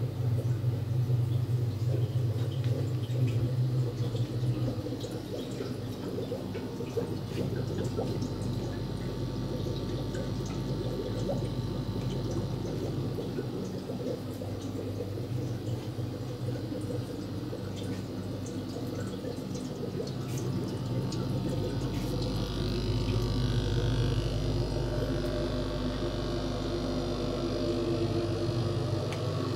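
Steady hum of aquarium air pumps with water bubbling and trickling in the tanks. Over the last several seconds a deeper steady hum from a Marten boiler's blower fan comes up.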